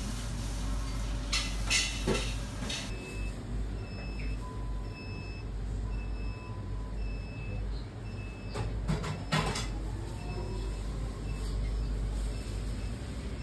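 Steady low hum with a short high electronic beep repeating about once a second, starting about three seconds in, and a few brief clatters near the start and again in the middle.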